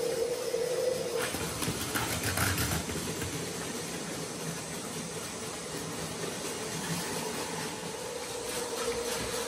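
Battery-powered Plarail Advance toy trains running on plastic track: a steady whirring of small electric motors and gears. A higher motor whine fades about a second in and returns near the end, with a few light clicks early on.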